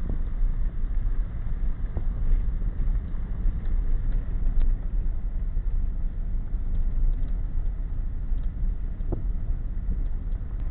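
Steady low rumble of a truck driving on a dirt road, heard from inside the cab, with a few light knocks along the way.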